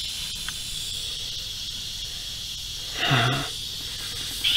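Steady high-pitched chorus of night insects, an unbroken hiss-like drone. About three seconds in, a man gives a brief low murmur.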